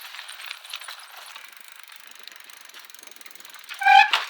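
Fast, continuous ratchet-like mechanical clicking, with a short, loud pitched squeak near the end.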